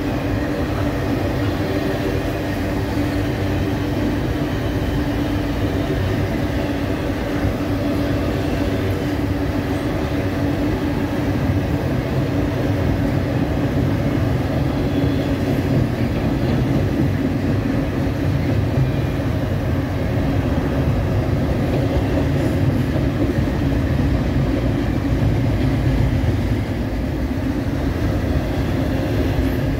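Long freight train rolling past, a steady loud rumble of wheels and cars on the rails, with a few steady low tones running under it.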